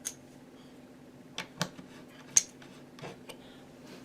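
A handful of short, light clicks and clinks, the loudest a little past the middle, from hand tools and screws being handled, over a steady low hum.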